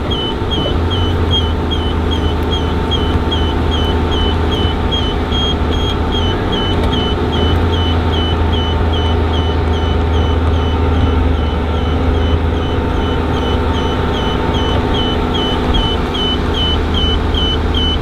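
A vehicle engine running steadily at idle, with a short high electronic beep repeating evenly about two to three times a second.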